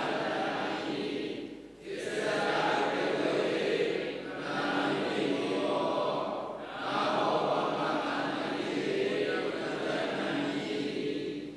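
Voices chanting a Pali text in unison, in four phrases with short breaths between them.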